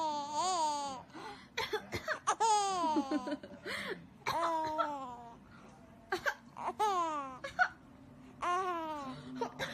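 A toddler laughing in high-pitched squealing bursts, about five of them, each sliding down in pitch.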